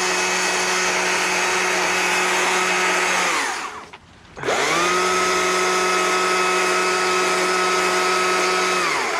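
Chainsaw run in two bursts while carving fur texture into wood, each holding a steady high pitch. It winds down and nearly stops a little after three seconds, then winds back up about a second later and runs on, winding down again at the end.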